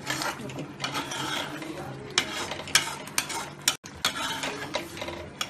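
A black plastic slotted spoon scrapes and stirs thick masala paste in a non-stick pot in irregular strokes. The paste is being fried in oil until the oil separates.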